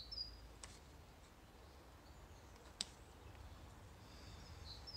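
Quiet: a few faint clicks of a straight carving knife cutting across the end grain of a sycamore spoon handle, the sharpest about three seconds in. Short, high, repeated chirps from a small bird come near the start and again near the end.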